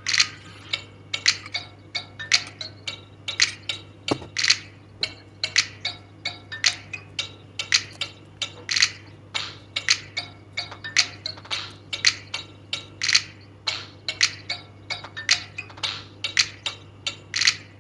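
Background music made of sharp, clicking percussive notes about twice a second, over a low steady hum.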